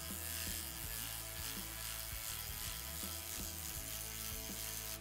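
Cordless electric ratchet running steadily, spinning out a large lower control arm bolt; the tool stops at the very end. Background music plays underneath.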